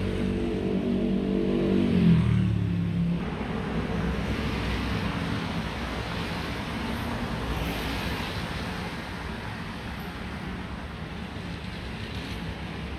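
A motor vehicle passes close by, its engine note dropping in pitch as it goes past about two seconds in. Steady street-traffic noise with tyre hiss on wet road follows.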